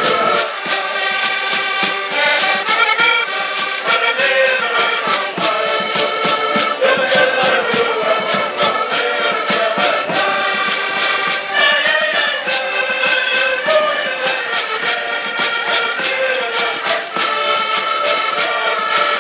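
Portuguese folk ensemble playing a lively tune: several button accordions hold the melody and chords over a steady quick beat from a small drum and hand percussion.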